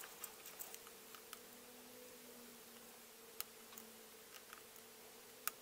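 Faint, scattered small clicks and taps of a paint-marker tip and fingers on a hard plastic action figure being touched up, a louder tick about halfway through and another near the end, over a faint steady hum.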